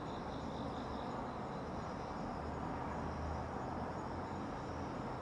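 Night insects chirping in faint, steady high-pitched bands over a steady low background hum.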